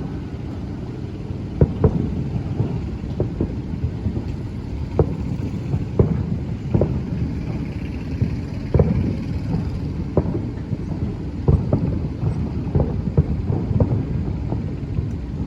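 Aerial fireworks booming: an irregular run of sharp bangs, about one every half second to second and bunching up in places, over a steady low rumble.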